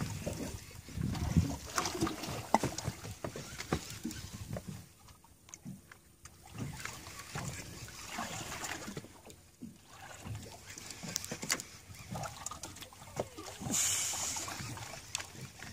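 Water lapping and sloshing against a drifting boat's hull, with scattered clicks and knocks from the rod and reel being handled, and a brief hiss near the end.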